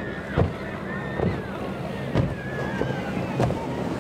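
Powerboat engines running with a steady low drone, with wind on the microphone and several short thumps.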